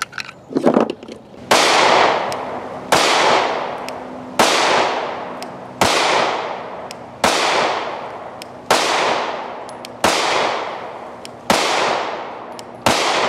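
Nine shots from a Glock 43 9mm pistol, evenly spaced about a second and a half apart. Each is followed by a long echo that fades before the next.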